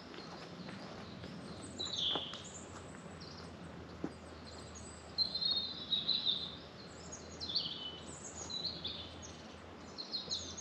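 Small songbirds chirping and calling in short, high phrases, busiest from about halfway through.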